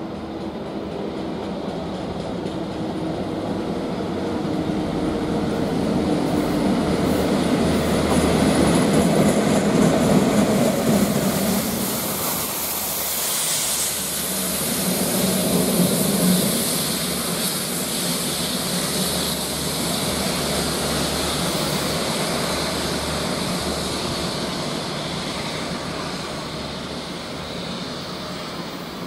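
Railhead treatment train topped and tailed by Class 69 diesel locomotives running through the station. The sound swells to a peak as the train passes, dips, rises again about sixteen seconds in, then fades as it draws away. The wagon wheels have flats that are called very bad.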